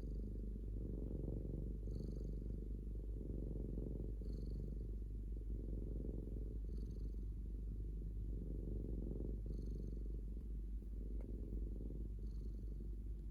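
A resting cat's continuous low rumble, which its owner cannot tell apart as purring or snoring. A faint high whistle comes with each breath, about every two and a half seconds.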